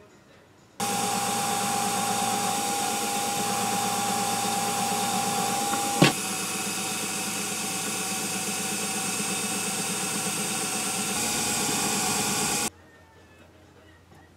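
Small Emco Unimat SL drill press running, drilling a setscrew hole in a brass shaft coupler with a fine bit. Its steady motor sound starts suddenly about a second in and cuts off suddenly near the end, with one sharp click about halfway through.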